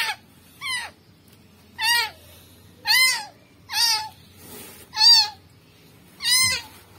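Newborn kitten mewing: seven short, high-pitched cries, about one a second, each rising and then falling in pitch.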